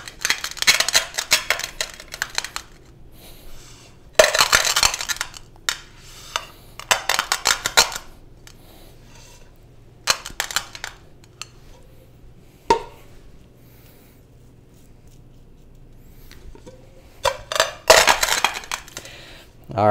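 Whole coffee beans crunching and cracking under a stainless steel pot that is pressed and rocked down onto them, with the metal pot scraping and clinking. It comes in about five bursts of a second or two with pauses between, and one sharp knock about halfway through.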